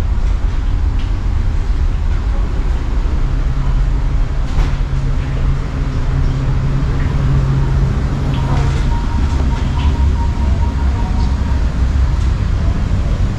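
Steady low rumble of a Navy ship's ventilation and machinery below decks, heavier for a few seconds in the middle.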